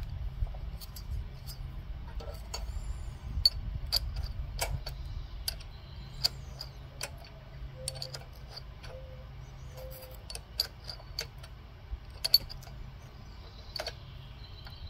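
Irregular light metallic clicks and ticks of a wrench and hand tools working the rocker-arm adjuster on a Briggs and Stratton 550EX overhead-valve engine, setting the valve clearance. A low steady rumble lies underneath.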